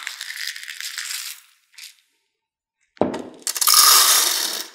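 Dry popcorn kernels rattling as a scoop digs into a bowl of them, then, after a silent pause of about a second and a half, a louder clatter as the scoopful of kernels pours into the air popper's chamber.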